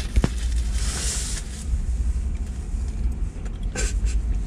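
Steady low rumble inside a parked car's cabin, with a paper burger wrapper rustling about a second in and a few sharp clicks.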